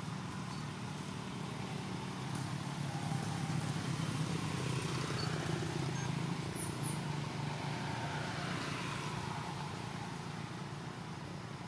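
Low rumble of a motor vehicle's engine, growing louder a few seconds in and then slowly fading, as a vehicle passes.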